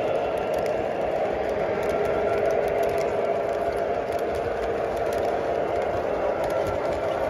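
Three-rail O gauge model passenger cars rolling past on tubular track: a steady metallic rumble and whir of the wheels on the rails, with irregular light clicks and rattles.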